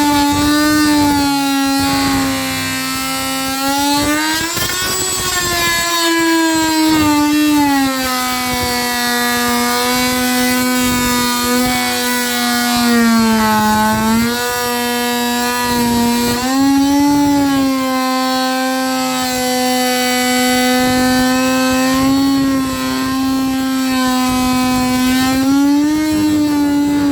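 Electric power tool motor running continuously, its pitch sagging and recovering several times as the load on it changes.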